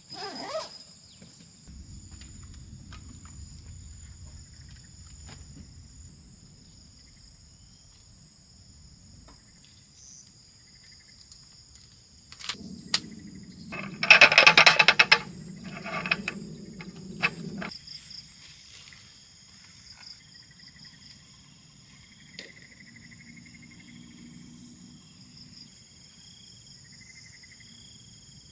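Insects chirring steadily in high, unbroken tones. About halfway through, a folding camp chair being set up gives a loud burst of rustling and knocking that lasts a few seconds.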